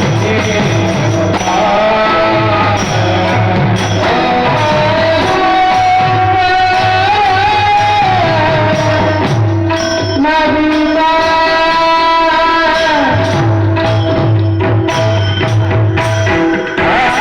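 Marathi devotional kirtan music: a male singer holding long, wavering notes of the tune over drum strokes and small cymbal clicks, the drum dropping out for a few seconds in the middle.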